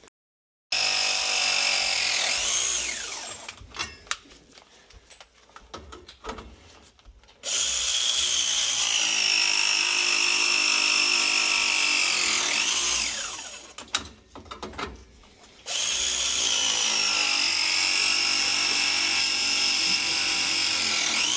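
Press tool crimping copper press fittings: its motor whines in three separate press cycles, the first one short. Each cycle's whine drops in pitch as the jaws close on the fitting and ends in a quick swoop.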